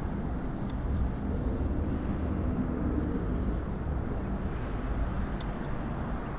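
City street traffic: a steady low rumble of passing vehicles.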